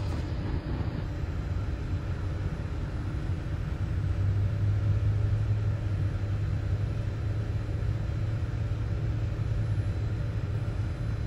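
A towboat's diesel engines running with a steady low drone that firms up about four seconds in, over an even background hiss.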